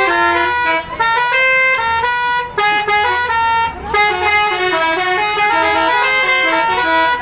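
Basuri telolet bus horn playing a melody of quick stepped notes, with a few brief breaks between phrases.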